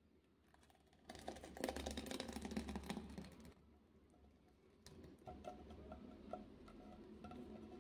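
Thick milk mixture poured from a pan into a glass bowl: a splashing pour that starts about a second in and lasts about two seconds, then a softer, quieter pour as the bowl fills.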